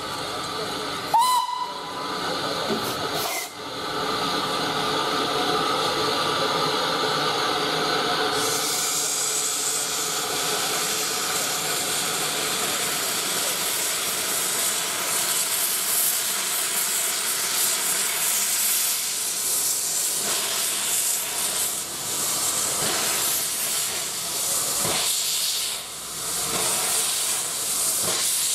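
Lynton & Barnstaple Baldwin 2-4-2T steam locomotive No. 762 'Lyn' gives one short whistle about a second in. Then comes a loud, steady hiss of steam blowing from its open cylinder drain cocks, growing harsher and brighter after about eight seconds.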